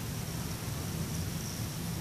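Steady background hiss with a low hum and a faint, steady high-pitched tone, with no distinct event.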